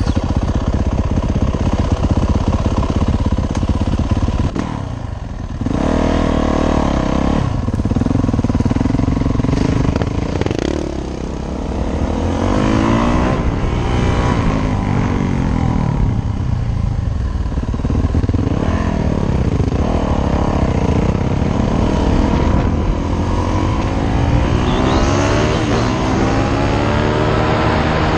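Yamaha YZ450F dirt bike's single-cylinder four-stroke engine under way, revving up and dropping back again and again as it pulls through the gears. The engine briefly lets off about five seconds in and again about eleven seconds in.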